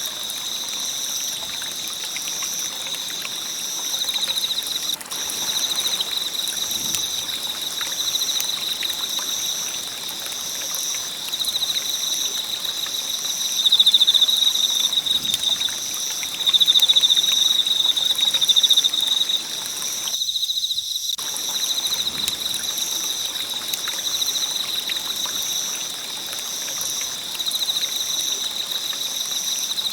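Campfire burning with a steady hiss and light crackling, under the continuous high-pitched, pulsing chirping of insects. The fire sound cuts out for about a second about two-thirds of the way through, while the insect chirping carries on.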